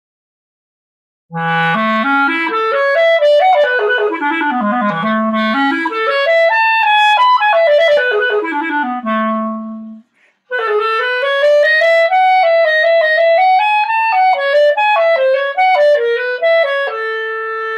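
Buffet Crampon RC Prestige clarinet in A played solo. It starts about a second in on a low note and moves into fast runs sweeping up and down before a held low note. After a short breath pause about ten seconds in comes a phrase in the middle register. The shop rates this instrument's tone as dark, smooth and resonant (brown, green and orange rings).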